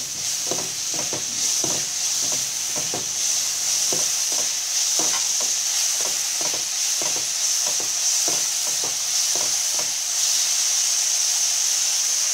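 Chopped apple frying in ghee in a nonstick pan, with a steady sizzle. A silicone spatula stirs and scrapes the pieces throughout, making soft, irregular strokes about one or two a second.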